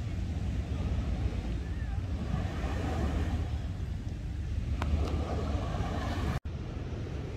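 Wind rumbling on the microphone over small waves breaking and washing onto a sandy shore. The sound drops out for an instant about six and a half seconds in.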